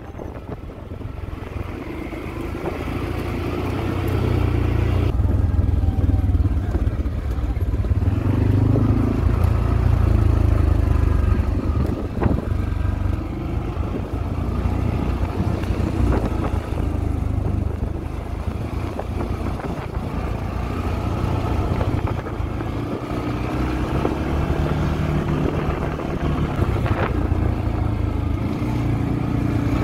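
ATV engine running under way, its pitch and level rising and falling with the throttle. It grows louder over the first few seconds as the machine picks up.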